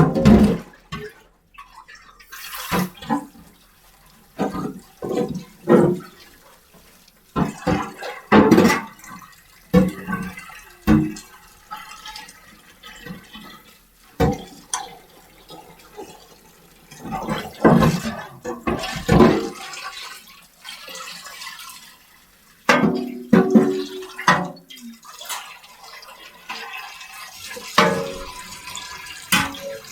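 Running and splashing water with irregular knocks and clatters, like household washing at a sink.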